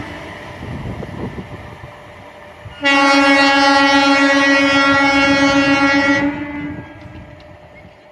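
Low rumble of a train, then an Indian MEMU electric train's horn sounding one long steady blast of about three and a half seconds, starting about three seconds in.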